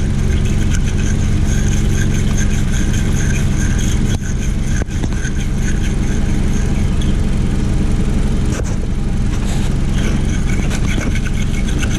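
Toyota Camry engine idling steadily with the hood open, kept running on the alternator alone while the battery's positive cable is off. A wire terminal-cleaner brush scrapes on the cable clamp along with it.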